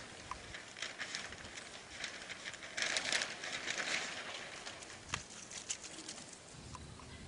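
An Asian elephant's trunk working at a paper banner to pull off candy: soft rustling with scattered small clicks, a louder rustle about three seconds in, and a sharp click a little after five seconds.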